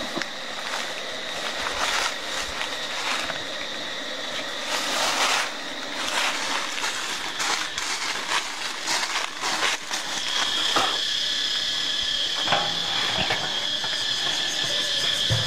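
Handling noise of beekeeping work: rustles and light knocks of hands on wooden hive boxes and frames. Under it runs a steady high-pitched whine that becomes much louder about ten seconds in.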